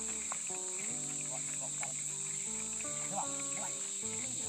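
Steady high-pitched chorus of insects, the loudest sound throughout, with fainter low musical notes changing pitch in steps underneath.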